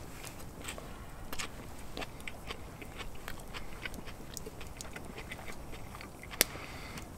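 A person biting into and chewing a mouthful of burrito filled with crisp-crusted pan-fried trout and crunchy lettuce: soft, irregular crunching clicks of chewing, with one sharp click near the end.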